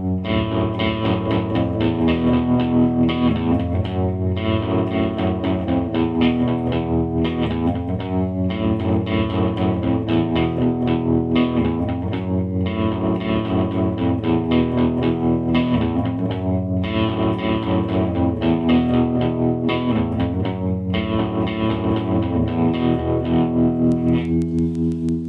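Electric guitar played through a Line 6 POD Pro amp modeler, ringing chords and notes with a light crunch of amp-model overdrive.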